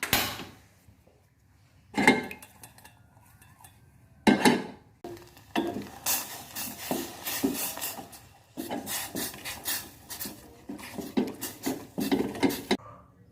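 Clatter of a cooking pot and a utensil while ginger juice and palm sugar are heated in the pot. It begins with a few separate knocks and then turns into a run of quick clinks lasting about seven seconds.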